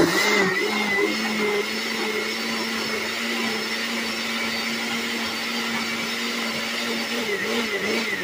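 Countertop blender running at a steady pitch, puréeing a tomato salsa with grilled jalapeños and cilantro. Near the end the motor's pitch begins to rise and fall rhythmically.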